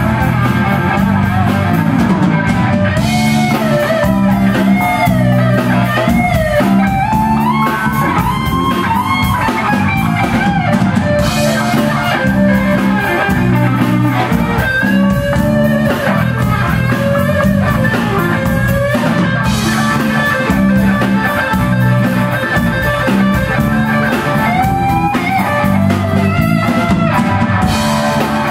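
Live rock band playing loud: an electric guitar plays a bending, wavering lead line over bass guitar and drum kit.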